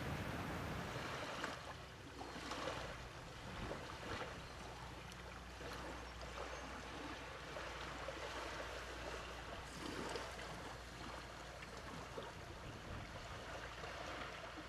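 Small waves from a calm sea washing gently onto a sandy beach, a soft wash of water that swells twice.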